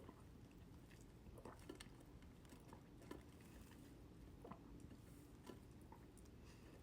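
Near silence with faint, irregular small clicks and gulps of someone sipping and swallowing water, roughly one a second.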